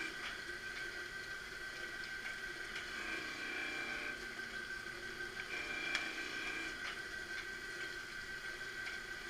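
Marunaka MG-500 straight knife grinder running idle passes, its carriage tracking back and forth with the grinding head raised clear of the blade. A steady motor whine runs throughout, with a second, higher tone that comes and goes for about a second every three seconds. There is a single click about six seconds in.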